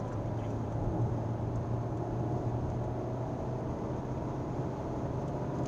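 Car engine drone and tyre and road noise heard from inside the cabin as the car accelerates down a straight, the low engine note held steady.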